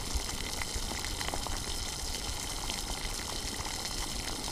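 Green chicken curry simmering in a pot: steady bubbling with small crackling pops as cream is stirred in.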